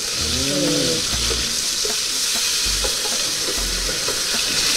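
Beef pieces frying in an aluminium pot with a steady sizzle, while a wooden spoon stirs them with irregular low knocks against the pot.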